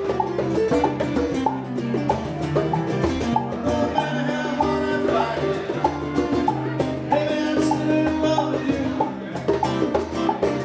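Live acoustic trio playing: two guitars over congas and a drum kit, with a steady percussive rhythm.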